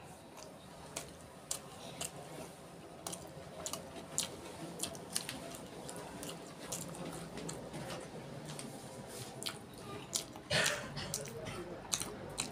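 Close-up wet chewing of a mouthful of rice and curry, with a string of sharp lip smacks and mouth clicks. A louder wet smack comes about ten seconds in.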